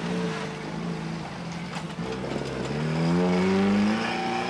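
Jeep engine pulling hard up a steep dirt slope. The revs rise about two seconds in and are at their loudest near the end.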